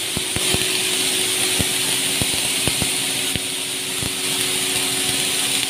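Steady hum and hiss of welding-shop machinery, with irregular light clicks about twice a second.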